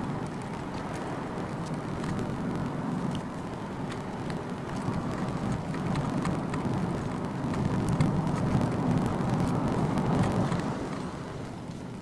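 Steady road and tyre noise inside the cabin of a Honda Freed Hybrid on the move, with a low rumble that builds up about six seconds in and is loudest around eight to ten seconds, as a Kintetsu limited express train passes alongside on the parallel track.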